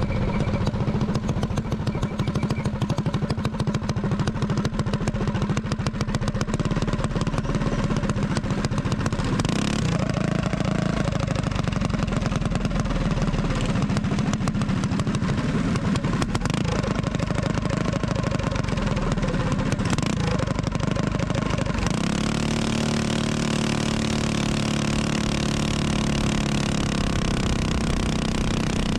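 Minibike engines running steadily as a group rides at speed. About 22 seconds in, the nearest engine's note changes to a steadier, more even pitch.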